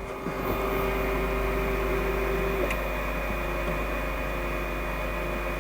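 Flashforge Adventurer 3 3D printer moving its axes during automatic calibration (pre-adjusting): a steady motor hum with a whine that stops about halfway through, followed by a faint tick.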